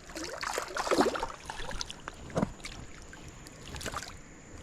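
Water splashing in a creek in irregular bursts, several in the first second and a sharp splash about two and a half seconds in, as a hooked fish thrashes at the surface while it is reeled in.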